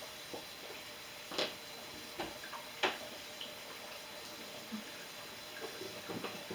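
Dishes and utensils knocking and clinking as a dishwasher is loaded: two sharp knocks about a second and a half apart, with a few lighter clicks around them and near the end.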